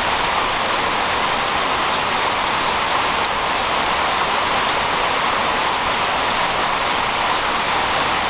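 Heavy rain falling steadily, a dense even hiss with scattered drops ticking through it.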